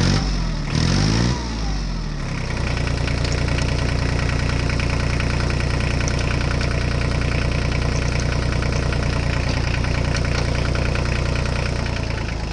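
Tractor engine revving up and back down in the first couple of seconds, then settling into a steady idle with an even chugging rhythm.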